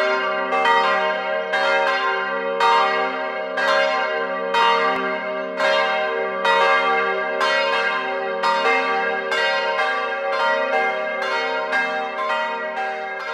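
Church bells ringing, several bells struck in turn about once a second, each stroke ringing on under the next.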